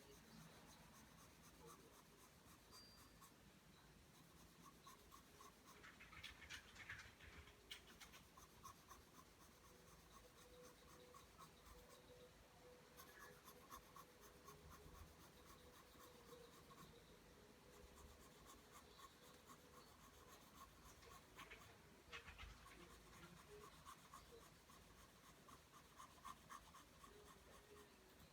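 Pencil drawing lines on paper, faint quick strokes scratching back and forth in a steady run.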